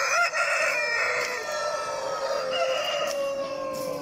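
Rooster crowing: one long, drawn-out crow that slowly falls in pitch, with a second crow overlapping it partway through.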